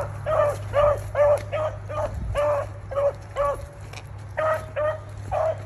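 Gun dogs barking as they run a rabbit's track: short, pitched yelps repeated about three a second, with a brief break about four seconds in.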